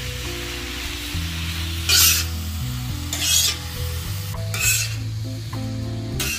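Sliced vegetables stir-frying on a hot flat iron griddle (tawa), tossed with metal spatulas: a sizzle with four short louder bursts of hiss and scrape, one every second or so.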